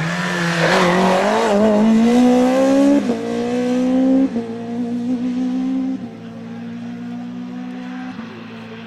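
Opel Kadett C Coupe rally car's engine revving hard under full acceleration. Its pitch climbs and drops sharply at upshifts about three and four seconds in, then the engine runs steadier and fades as the car pulls away.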